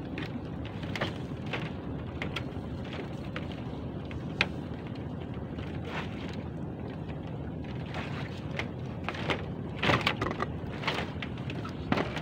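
Steady low rumble of wind and sea on the open water, with scattered sharp clicks and knocks that come thicker about ten seconds in.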